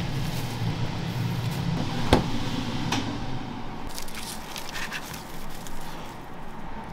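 Handling sounds as tongs scoop dry bonito flakes onto takoyaki in a paperboard box and a wooden skewer pokes into the box: light rustling and scraping with a sharp click about two seconds in. A low hum underneath fades out about three seconds in.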